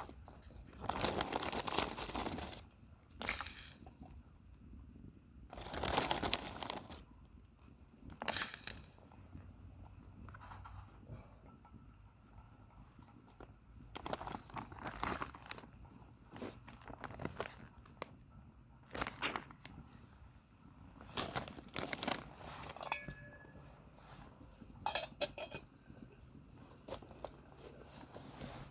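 Irregular crunching and crinkling sounds in bursts of a second or two, with a few light clinks.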